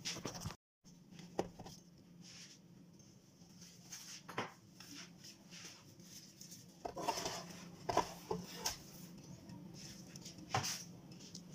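Faint scattered clicks and knocks of a metal spatula against the nonstick plate of an electric flatbread maker as a baked flatbread is lifted off, with a short scrape about seven seconds in, over a faint low hum.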